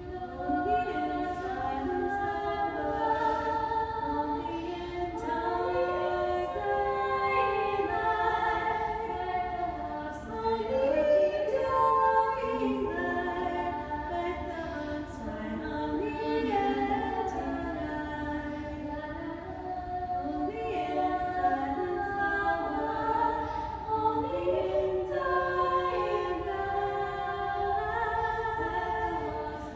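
Unaccompanied singing in a concrete pedestrian tunnel: held notes from voices that overlap one another, changing pitch every second or so, with no beat or instruments.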